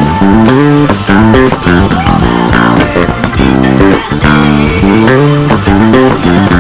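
Electric bass guitar played fingerstyle, a busy run of plucked notes over a full band backing track.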